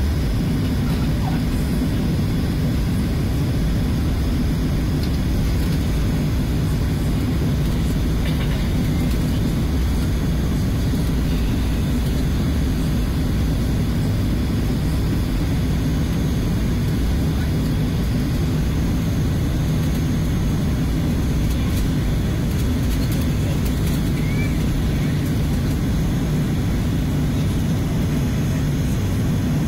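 Jet airliner's engines running steadily while the plane taxis, heard inside the cabin as an even, low rumble that neither rises nor falls.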